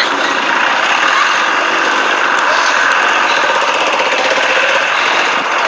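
ZIBAR 4x4 off-roader's engine running loudly under load, a steady rough drone with a fast, even pulsing.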